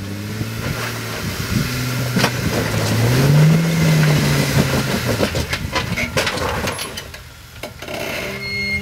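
Jeep Wrangler engine pulling the vehicle up over rocks, its pitch rising about three seconds in and then settling, with rock crunching and popping under the tyres. The engine noise drops away near the end.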